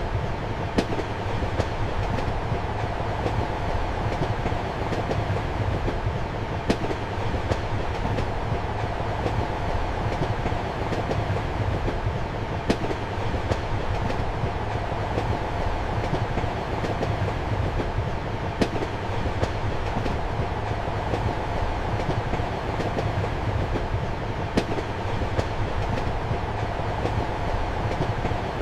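Passenger train carriage running on rails, heard from inside the compartment: a steady rumble and hum with sharp wheel clicks over the rail joints, the loudest about every six seconds.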